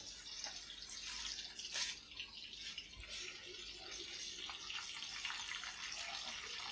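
Straw mushrooms frying in a pan of hot oil: a low, steady sizzle, with a few faint clicks.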